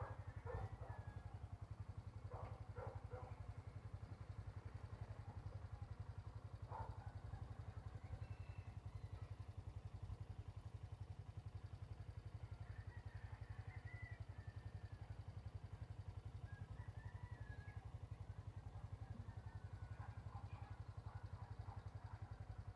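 Faint birdsong: scattered short, high chirps now and then over a steady low rumble.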